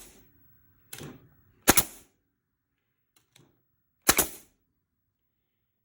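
Porter-Cable FN250A 16-gauge pneumatic finish nailer firing two nails: two sharp shots about two and a half seconds apart, with a softer knock about a second in. The driver is returning after each shot, a sign that the replacement urethane bumper has cured the jamming.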